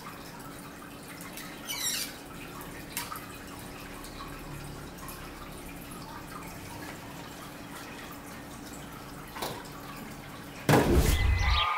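Water dripping in a few separate drops over a steady low hum, then a sudden loud thump near the end.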